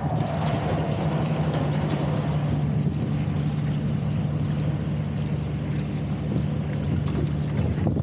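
Engine-driven opal agitator plant running steadily: a constant low engine drone with a noisy wash over it, and a few faint clicks.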